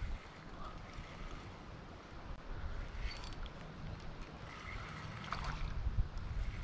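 Wind buffeting the microphone over stream water, with a few faint clicks about three and five seconds in.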